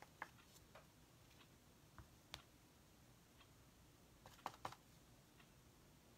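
Near silence with a few faint soft taps and clicks, a foam pouncer being dabbed into paint on a paper plate, with a quick cluster of taps about four and a half seconds in.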